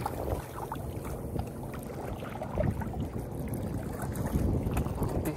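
Wind buffeting the microphone over small waves lapping against shoreline rocks, a steady rumbling rush that swells and eases.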